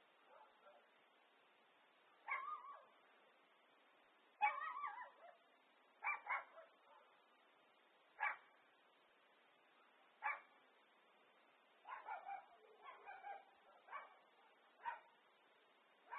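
A dog barking in single barks and short runs, roughly every two seconds.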